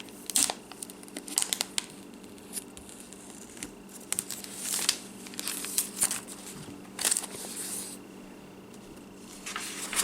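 Packaging being handled: crinkling and tearing with scattered small clicks and taps, and a few short swishes about halfway through and near the end.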